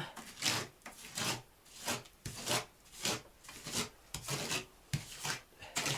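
A plastering spatula scraping and smearing textured plaster onto the fireplace surround in short strokes, about two to three a second.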